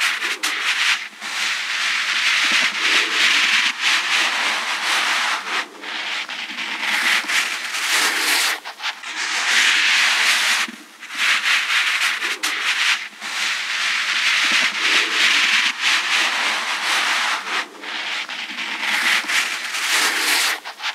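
Skin rubbing against skin: a continuous hissing rub that goes on for a few seconds at a time, broken by short pauses.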